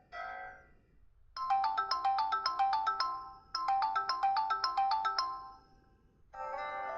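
Samsung Galaxy S4 mini ringtone: a fast, bright melody of short notes, about six a second, played through twice with a brief break and fading out. Near the end a different ringtone with longer held notes begins.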